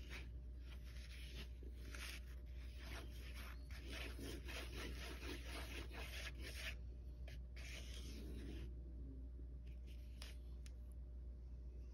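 Metal spoon stirring thick barbecue-and-mustard sauce in a foam plate, scraping and rubbing across the plate in repeated strokes, which thin out to a few light clicks in the last few seconds. A steady low hum lies underneath.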